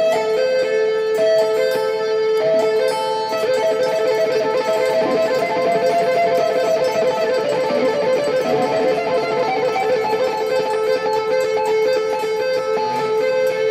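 Electric guitar playing a two-hand tapping exercise: a right-hand tap at the 12th fret pulled off to an open-fretted 5th, hammered on at the 8th and pulled back to the 5th, repeated as an even, continuous run of smooth legato notes.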